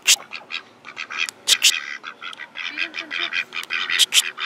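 Domestic ducks quacking in a quick, busy chatter as they gather to feed on the water. A few sharp clicks are mixed in.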